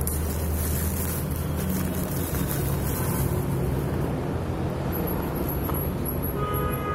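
A steady low engine-like rumble runs under light rustling of plastic packaging being handled. Faint music with held tones comes in near the end.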